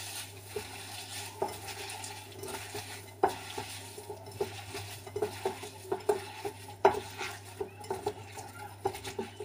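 Hands rubbing and squeezing purple basil leaves, lemon pieces and sugar in a glass bowl: a soft crunching rustle with irregular clicks and knocks against the glass, two sharper knocks about three and seven seconds in.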